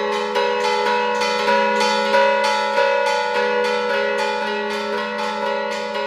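Several mission bells hung in a stone bell wall, rung by pulling ropes: a rapid, even run of strikes, about three a second, over the bells' overlapping ringing tones.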